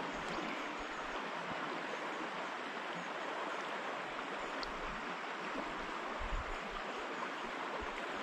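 River water rushing steadily over a stony bed. A few low bumps on the microphone come about six seconds in.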